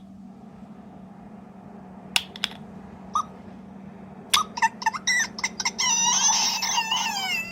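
Button clicks on a small sound-making capsule toy, then a run of short electronic chirps from its tiny speaker, ending in a louder warbling call of about two seconds.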